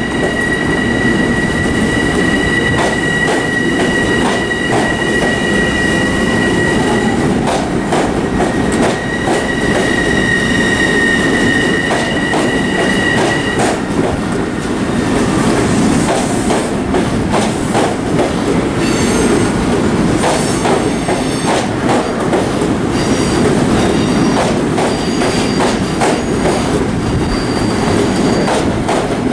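Long Island Rail Road electric multiple-unit train rolling past on track 2 with a loud, steady rumble of wheels on rail. A steady high-pitched wheel squeal runs for about the first thirteen seconds and stops. Higher, fainter squeals and a run of clicks from wheels over rail joints come in during the second half.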